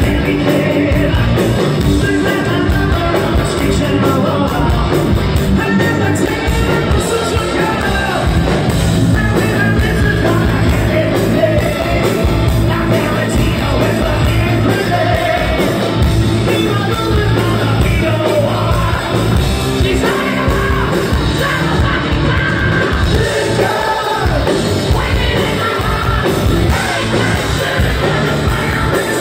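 A live hard rock band playing loud in a large hall: electric guitars and a drum kit, with a male lead singer belting over them. It is recorded from inside the crowd.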